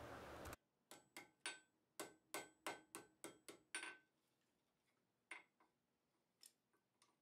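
Faint, light ball-peen hammer taps on hot steel tongs on an anvil, each with a short metallic ring: a quick run of about ten taps over three seconds, then two more spaced out. The taps are small adjustments to line up the jaws of a small riveted pair of tongs, not forging blows.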